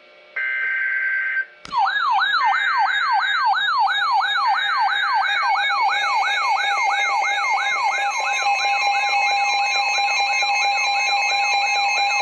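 Electronic alert siren: a short steady tone, then from about two seconds in a fast, evenly repeating rising wail, about three sweeps a second, over a steady lower tone. It serves as the alarm that opens a tornado warning.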